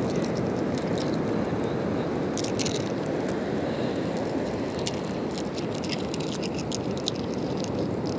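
Light crunching and scattered clicks of seashells and coarse shell-laden sand, a few around three seconds in and more in the latter half, over a steady rush of wind and surf.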